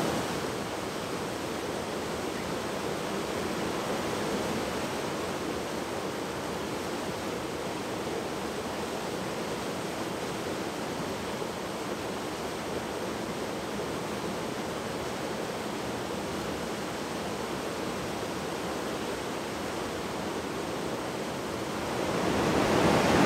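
Rushing water of a small cascade tumbling into a creek pool, a steady even wash that grows louder near the end.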